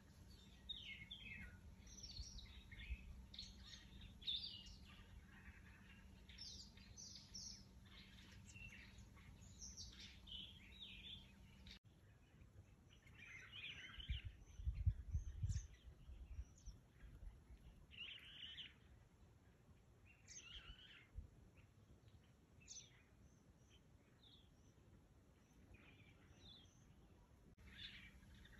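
Wild birds calling, many short chirps and whistles overlapping, with a brief low rumble about halfway through.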